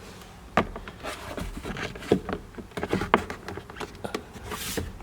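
Plastic clicks, knocks and rubbing from a Honda Civic's glove box being handled as its side stops are squeezed in to let it drop down, with a brief rustle near the end.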